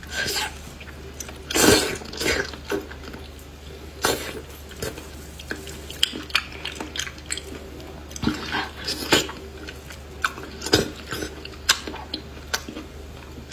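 Mouth eating sounds of wide noodles and lamb intestines in chili oil: slurping and chewing, with irregular wet smacks and clicks and a louder slurp about two seconds in.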